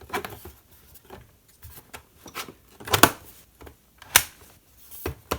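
A MacBook's bottom panel being handled and fitted back on: a series of sharp clicks and light taps, with the loudest clicks about three seconds in, a second later, and near the end.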